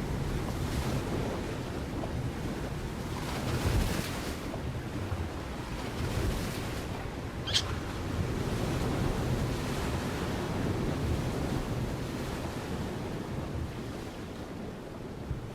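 Steady outdoor rushing noise, heaviest in the low end and swelling in gusts, with a single short, high chirp about halfway through.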